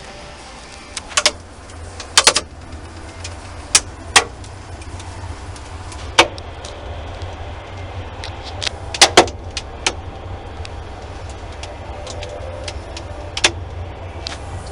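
Steady low hum of a running Hoshizaki upright commercial freezer-refrigerator, with a dozen or so sharp clicks and knocks scattered through, the loudest pair about nine seconds in.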